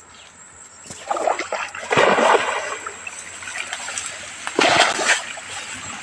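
River water splashing as a man wades through thigh-deep water, in several bursts: the loudest about two seconds in and another about five seconds in.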